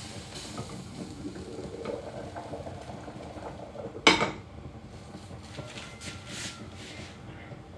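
Cookware being handled at a stove: one sharp clank of a pot or lid about four seconds in, amid quieter clinks and handling noise.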